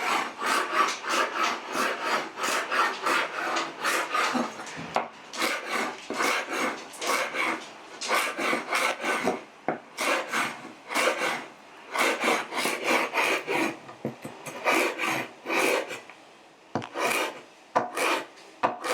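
Machete blade chopping celery on a cutting board: a quick run of crisp chops, two or three a second, broken by short pauses.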